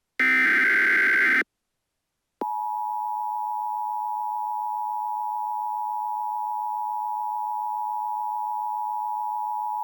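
Emergency Alert System broadcast tones: the last burst of the screeching SAME digital header, a second of silence, then the steady two-tone EAS attention signal, which begins about two and a half seconds in and runs on. The attention signal is quieter than the header burst.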